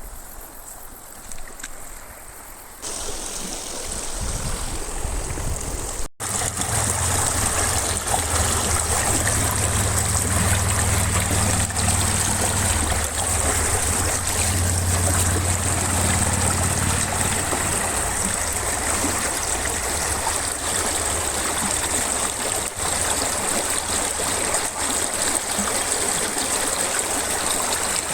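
River water flowing and trickling steadily. It is quieter for the first few seconds, then jumps up and stays level, with a low rumble through the middle stretch.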